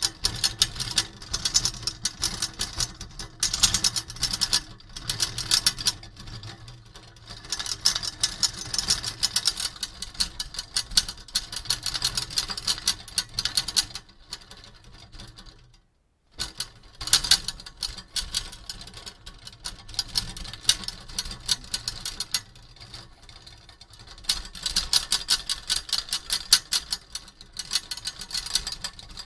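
Metal parts rattling in a fast, continuous chatter of clicks that swells and fades in waves. It stops for about half a second about halfway through, then starts again.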